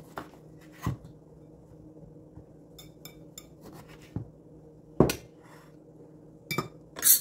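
Lemons being squeezed for juice: a handful of separate sharp knocks and clinks of kitchen utensils against a dish, the loudest about five seconds in and just before the end. A faint steady hum runs underneath.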